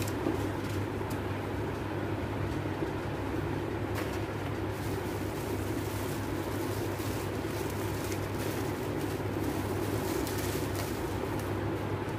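A steady low hum runs throughout, under faint crinkling as paper and bubble wrap are handled and unwrapped.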